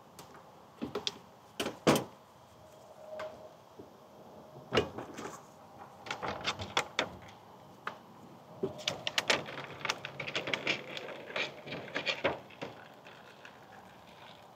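Pliers and gloved hands taking the clip and fuel hose off the fuel valve nipple of a small engine: scattered sharp clicks and clatters, a few near the start, then a busier run through the middle and latter part.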